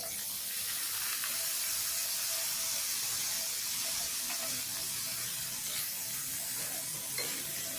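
Pouch mushrooms, tipped in with their liquid, sizzling loudly in hot butter with garlic and onion in a frying pan: a steady hiss that starts suddenly as they hit the pan and eases slightly.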